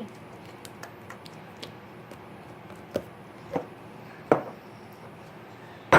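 Sticky homemade glue slime being pulled and squeezed by hand, giving short sticky smacks and pops; three sharper ones come in the second half.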